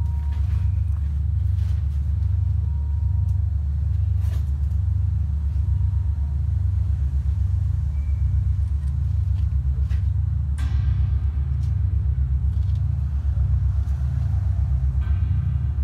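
Sound-art performance on amplified metal: a deep, rapidly pulsing low drone, with metallic ringing tones coming in about ten seconds in and again near the end.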